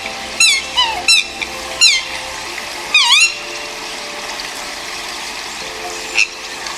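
A bird giving short, sharp calls that fall in pitch, about two a second, then one louder dipping call about three seconds in and a single chirp near the end, over a steady background hiss.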